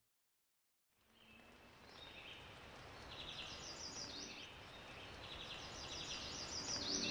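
About a second of silence, then a woodland ambience fades in: a steady background hiss with songbirds chirping in short, quick runs of high notes, repeated several times and growing slowly louder.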